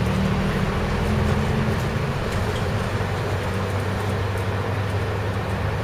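City bus driving on the road, heard from inside the cabin: a steady low engine drone with an even rush of tyre and road noise.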